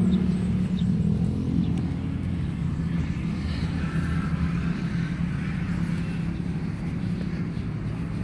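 Low rumble of road traffic with a steady engine hum that eases off over the first couple of seconds, as of a vehicle going past and away.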